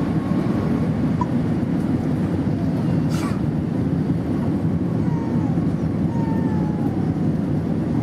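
Strong wind rumbling on the microphone, a steady low roar. In the second half a faint jet-engine whine slides down in pitch.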